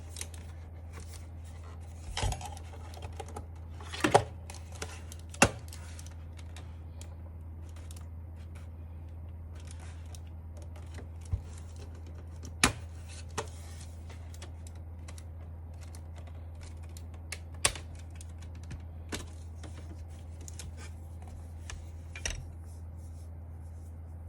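Scattered, irregular clicks and knocks of plastic parts being handled as an Akko mechanical keyboard is taken apart, over a steady low hum.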